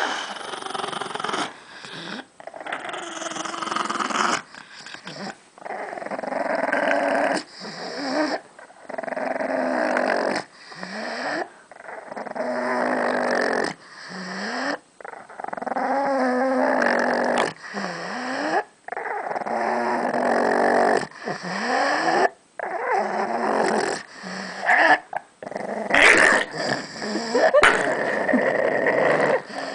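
Pug growling over a chew bone held in her mouth, a possessive warning growl guarding the bone. The growls come in long bouts of one to three seconds broken by short pauses, several ending in a brief rising note.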